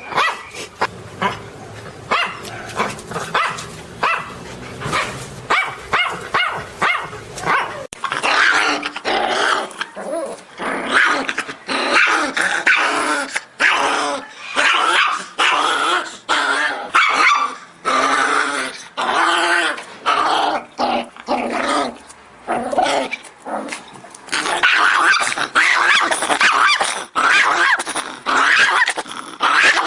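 Miniature pinscher barking angrily in quick repeated high barks, mixed with growling. About eight seconds in, the sound cuts to a different recording where the barks come denser and longer, run together with snarls.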